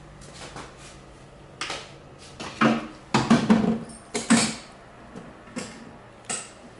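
Hand tools and hardware being handled and set down, a string of separate clatters and knocks, busiest in the middle.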